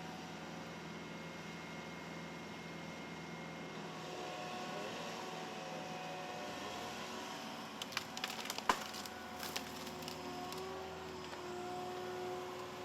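Faint steady machine drone whose pitch shifts slightly now and then, with a quick cluster of sharp cracks and snaps of wood splintering about eight to nine and a half seconds in, as a tree-felling machine works a tree.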